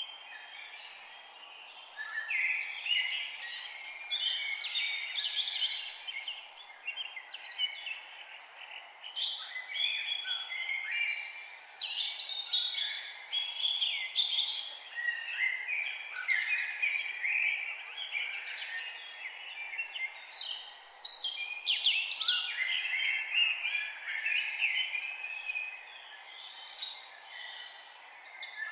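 Several songbirds singing and chirping at once, a dense chorus of overlapping trills and quick downward chirps, over a faint steady background hiss.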